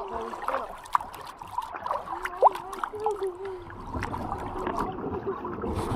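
Shallow river water trickling and lapping around a canoe hull, with scattered small knocks and splashes. A sharp knock comes about two and a half seconds in, and the water noise grows louder from about four seconds in as a man in waders wades against the canoe and takes hold of it.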